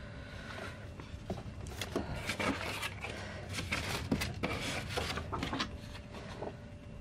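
Paper and plastic packaging rustling and crinkling in irregular bursts as it is handled inside a cardboard box, with a few sharp crackles.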